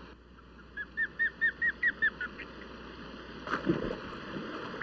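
Osprey calling: a quick run of about nine short whistled notes, each rising then falling. About three and a half seconds in comes a splash as the bird strikes the water.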